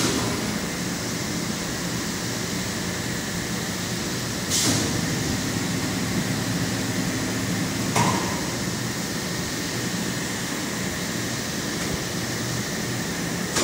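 Injection-moulding machine running with a steady mechanical hum and hiss. A short burst of hissing comes about four and a half seconds in, and a sharp clack about eight seconds in.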